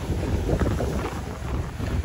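Wind buffeting the microphone in uneven gusts, with waves washing against the rocky shore underneath.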